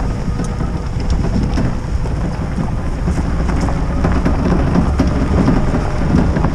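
Mitsubishi pickup truck rolling slowly downhill on a gravel track: a steady low rumble of engine and tyres, with small crackles of gravel crunching under the wheels.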